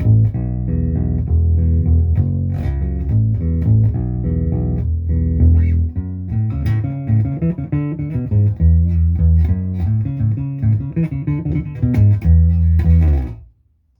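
Lyle 5120 short-scale hollow-body electric bass played on its neck pickup through a Fender Rumble 100 bass amp: a steady line of plucked notes that stops near the end.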